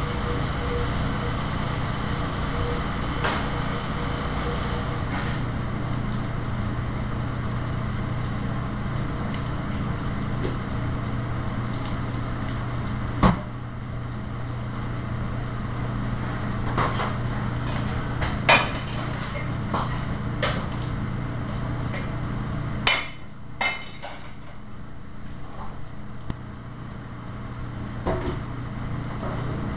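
Steady hum and rush of a commercial kitchen's exhaust hood over a gas range, with a few sharp knocks now and then and a quick pair of them about two-thirds of the way through.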